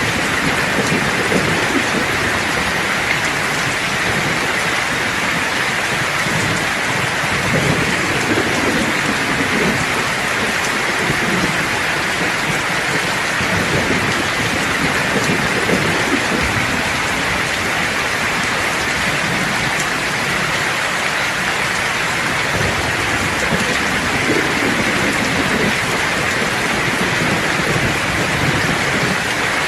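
Steady heavy rain pattering, with low thunder rumbling beneath it that swells and fades every few seconds.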